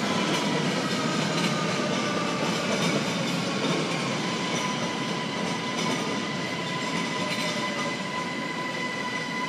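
ÖBB Cityjet (Siemens Desiro ML) electric multiple unit running along the track, with rail noise and a steady high whine, fading slowly as it moves away.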